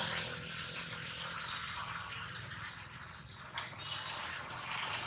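Dry leaf litter rustling and crackling as monkeys wrestle on it, with one sharp click about three and a half seconds in.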